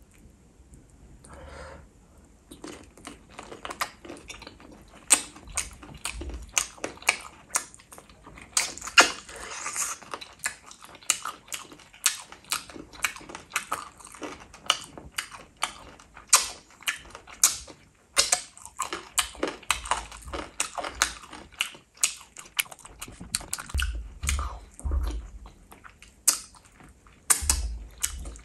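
A person chewing and biting gravy-coated chicken, a dense run of wet mouth clicks, smacks and crunches beginning about two seconds in.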